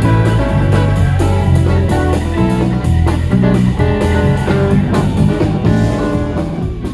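Live band playing an instrumental passage: an electric bass carrying a moving line of low notes, over a drum kit and electric guitars.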